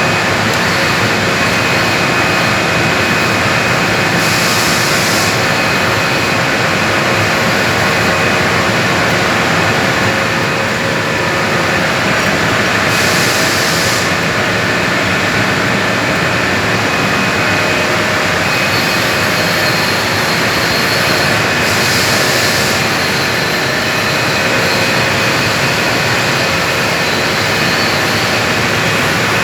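Arc welding on galvanized steel pipe in the 5G position: a loud, steady crackling hiss from the arc, with faint steady tones running beneath it and a brief sharper hiss about every nine seconds.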